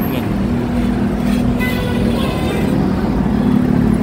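City road traffic at a junction: a steady low rumble with motor scooter engines humming as they pass close by.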